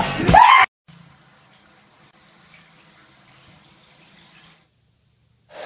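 Music with singing cuts off abruptly, then water from a bathtub tap runs steadily and faintly for about four seconds, an even hiss with a low hum, before stopping.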